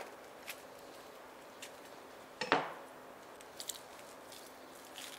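A metal chef's knife set down on the worktable with a short clatter about two and a half seconds in, among faint small clicks and rustles of a shallot's dry skin being peeled by hand.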